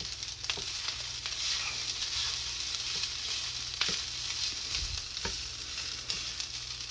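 Food frying in a hot pan on the stove: a steady sizzle, with scattered sharp clicks of a utensil against the pan.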